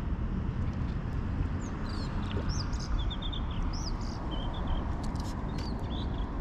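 Small birds chirping in short, high notes, some in quick runs of three or four, over a steady low rumble of wind on the microphone.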